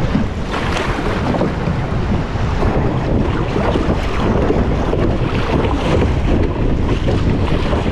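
Wind buffeting the microphone over water splashing and sloshing against the hull of a plastic sit-on-top kayak as it is paddled through choppy sea.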